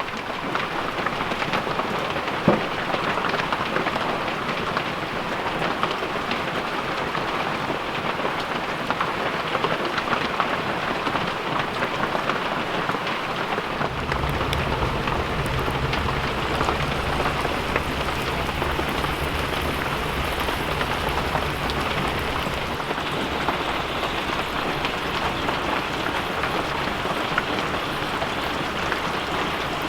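Steady rain falling, with a low rumble that begins suddenly about halfway through and lasts several seconds.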